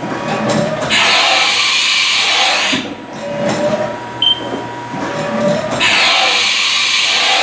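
Haas VF-5 CNC vertical machining center doing a tool change: two loud hissing bursts, each about two seconds long and about five seconds apart, with mechanical clunking and whirring between them, a short high beep in the middle and a steady thin whine underneath.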